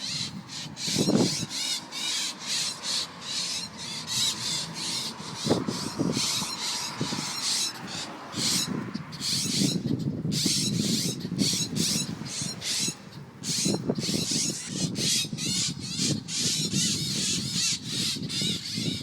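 Two parent birds giving rapid, repeated alarm calls, agitated by a dog that has caught their young.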